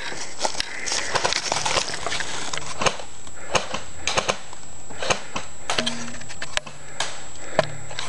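Irregular sharp clicks and snaps, a few a second, with a faint steady high tone underneath.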